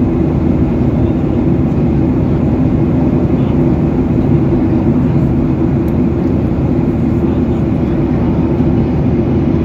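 Steady airliner cabin noise at cruise: the even, deep rush of engines and airflow heard from inside the cabin, unchanging throughout.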